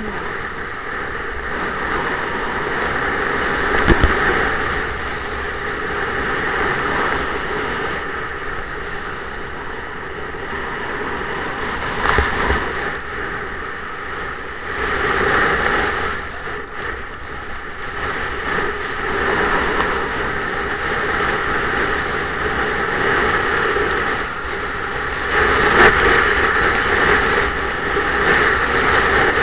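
Snowboard sliding and carving over snow, a continuous scraping rush that swells and eases with the turns. Sharp knocks about 4 and 12 seconds in, and a louder stretch near the end.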